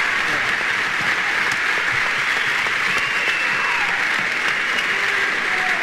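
Concert audience applauding steadily after a song ends.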